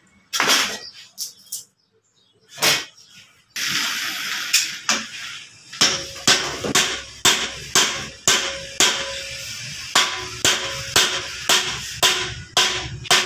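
Hammer driving wooden plugs into the open ends of a steel trolley frame's tube legs, which are plugged to take caster wheels. A few scattered knocks, then a steady run of sharp blows about two or three a second from about six seconds in, with a short pause partway through.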